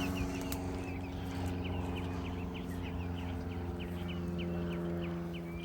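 Birds giving many short high chirps, several a second, over a steady low engine drone.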